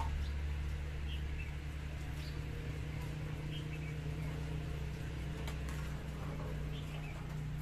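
Metal ladle stirring rice in an aluminium pot, with a sharp click of metal on the pot about five seconds in, over a steady low hum. Faint short bird chirps come and go above it.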